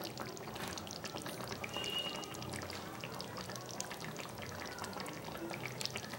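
Chicken kasha simmering uncovered in its thin gravy: a soft, steady crackle of many small bubbles and pops.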